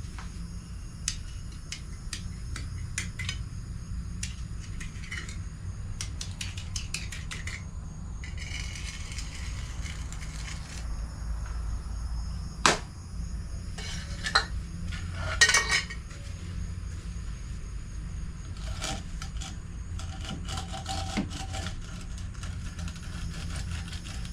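Metal hand tools clinking and scraping, like a trowel or putty knife worked against a metal pan: scattered light clicks, a scrape about eight seconds in, and a few sharper knocks between about twelve and sixteen seconds in, over a steady low hum.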